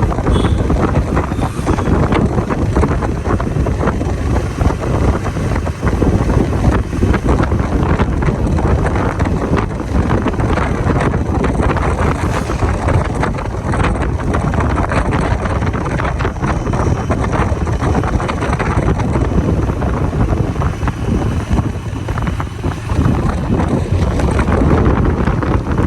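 Wind buffeting the microphone over the steady running and road noise of a moving vehicle.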